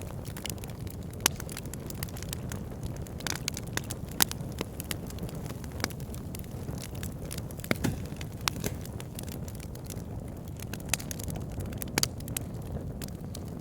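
Campfire burning: a steady low rumble of flames with irregular sharp crackles and pops of burning wood, a few louder snaps standing out.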